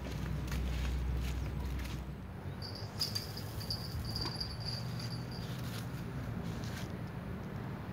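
A high, broken chirping trill, typical of an insect, for about three seconds from a few seconds in, over a steady outdoor background. In the first two seconds there is a low rumble and a few clicks, like a phone being handled.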